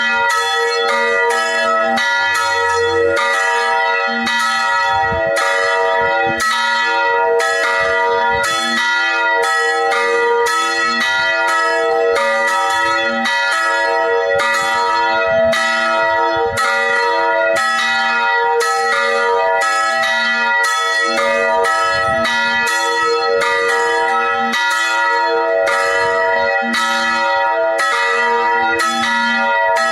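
Two swinging church bells, tuned to e² and b¹ (E5 and B-flat 4), ringing together, their strokes overlapping at about two a second with long ringing tones.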